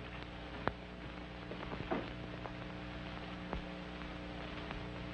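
Steady hum and hiss of an old optical film soundtrack, with a few scattered clicks and crackles, the sharpest about a second in and a small cluster about two seconds in.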